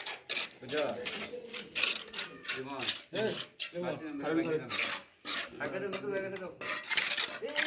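Metal hand tools scraping and clanking on concrete in irregular strokes, with workers' voices underneath.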